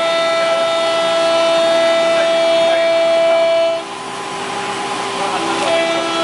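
CNC router's cutting head running with a steady high-pitched whine. A little under four seconds in, the whine gives way to a rougher, noisier sound for about two seconds, then the whine returns.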